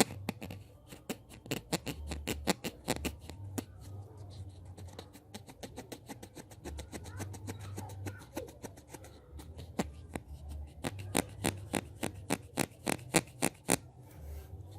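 Hand sounds close to the microphone: runs of rapid, crisp clicks and taps, several a second, with softer rubbing in the middle stretch and dull low thumps of handling.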